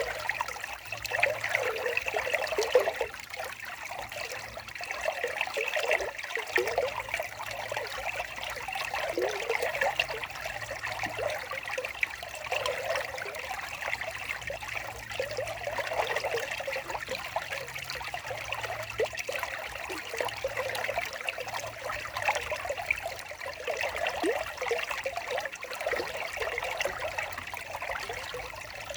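Small stream of water trickling steadily.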